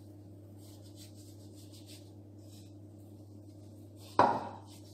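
Fingers patting and rubbing a layer of ground almond-skin powder and sugar into egg-white-brushed dough on a stone counter: a faint, scratchy rustling in short strokes. About four seconds in, one sudden, much louder sound cuts in and dies away within half a second.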